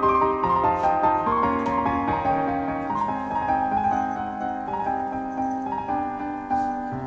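Background piano music: a slow melody of held notes.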